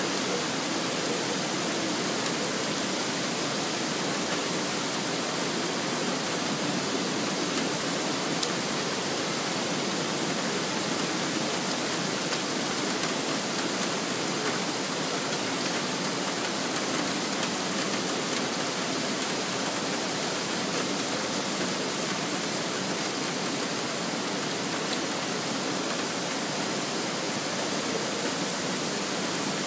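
Heavy rain pouring steadily during a thunderstorm, an even, unbroken hiss.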